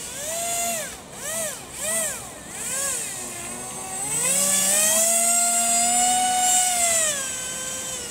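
Radio-controlled airboat's motor and air propeller whining, throttled up and down in four quick blips, then held high for about three seconds before easing off near the end.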